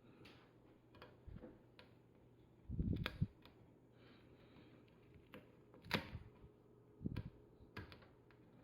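Scattered taps and knocks from handling a corner cushion guard and pressing it onto a table corner, the largest cluster about three seconds in and a sharp knock about six seconds in.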